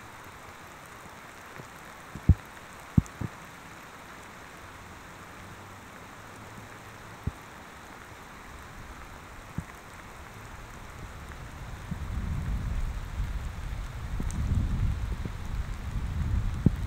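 Steady rain hiss, with a handful of sharp clicks as raindrops hit the camera's external microphone. About two-thirds of the way in, a louder low rumble rises and carries on to the end.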